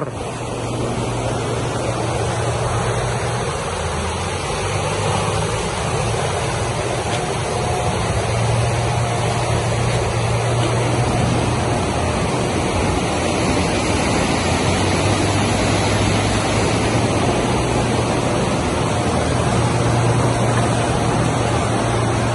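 Steady rush of fast-flowing river water, the stream running high after heavy rain.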